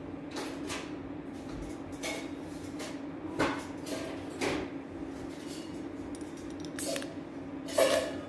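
Metal cake server lifting a slice of ganache-covered chocolate cake: a few light taps and scrapes, then a louder clink against a ceramic plate near the end, over a steady low hum.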